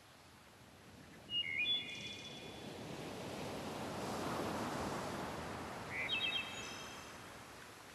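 Beach ambience: a rush of surf that swells and fades away, with two short spells of bird chirping, about a second and a half in and again about six seconds in.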